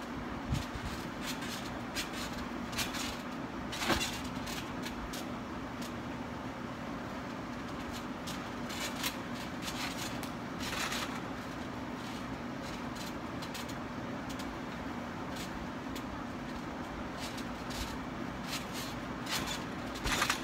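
Trampoline bed and springs thumping and creaking under a person bouncing and flipping, with sharp knocks from the landings, the loudest about four seconds in and near the end. A steady mechanical hum runs underneath.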